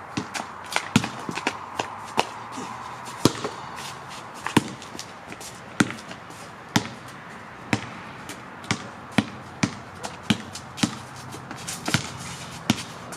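Basketball being dribbled and bouncing: a string of sharp thuds, irregular and closely spaced in the first few seconds, then about one a second.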